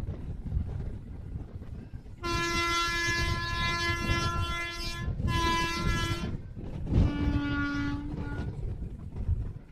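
Train's locomotive horn heard from a passenger coach, sounding three blasts: a long one of about three seconds, a short one, then a fainter, lower one. Under the horn is the steady rumble of the train running on the track.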